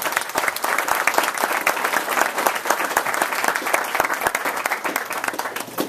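Audience applauding: many people clapping steadily, then stopping abruptly at the end.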